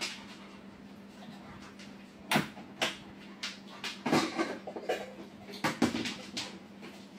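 A string of sharp plastic clicks and knocks from a rice cooker as a Labrador noses its hinged lid open and rummages inside, starting about two seconds in, over a faint steady hum.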